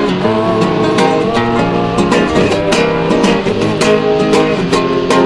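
Background music: an instrumental stretch of a song, led by guitar over a steady beat, with no singing.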